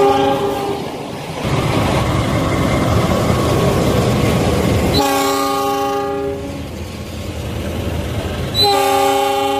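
Diesel locomotive's multi-note air horn blowing three times: a blast that ends under a second in, another about five seconds in, and a third near the end. Between the blasts, the loud rumble and rattle of a passenger train passing close by.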